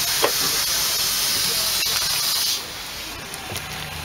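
Steam hissing loudly on a narrow-gauge steam locomotive's footplate, with a light knock just after the start; the hiss drops away sharply about two and a half seconds in.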